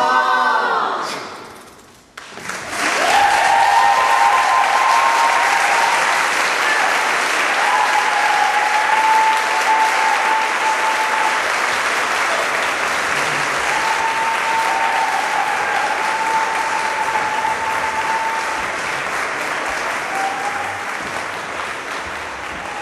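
An a cappella vocal group's final chord dies away in the first second or so, and then an audience breaks into steady applause with a few long whistles, slowly fading near the end.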